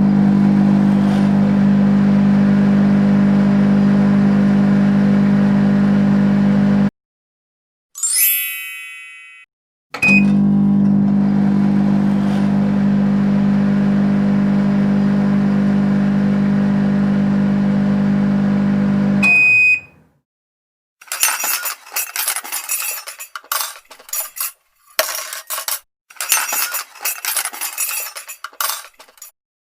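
A microwave oven running with a steady hum, then a single ding as it finishes; the hum plays again and ends with a short beep. After that comes a run of irregular glassy clinking.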